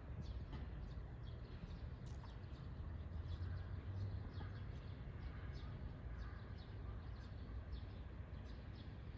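Small birds chirping faintly, short high notes that slide downward, repeated every fraction of a second, over a steady low rumble.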